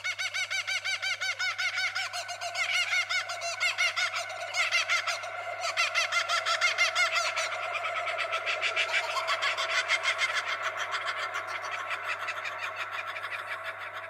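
Many small birds chirping rapidly, their calls overlapping into a dense, pulsing chorus that fades toward the end, over a faint steady low hum.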